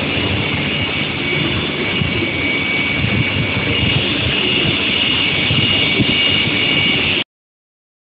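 Square-steel induction quenching and tempering furnace line running: steady loud machinery noise with two steady high-pitched tones over a rumble. It cuts off suddenly about seven seconds in.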